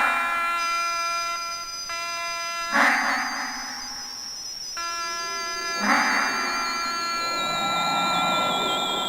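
Dubbed-in comedy sound effects: a steady electronic buzz of several held tones, broken by short noisy bursts about three seconds apart, under a high, wavering whistle-like tone that slowly falls in pitch.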